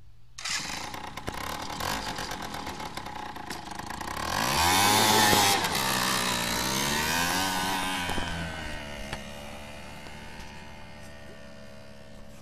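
Small petrol engine fitted to a motorized wheelbarrow, running and revving up, its pitch rising about four seconds in, then holding steady and fading as the wheelbarrow drives away.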